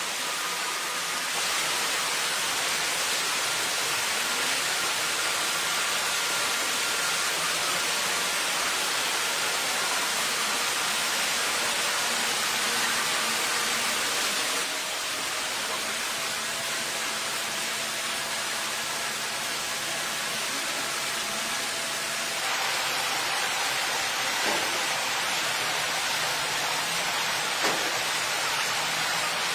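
A steady rushing hiss with a faint, steady diesel engine hum from the excavator underneath, and a couple of faint clicks in the second half.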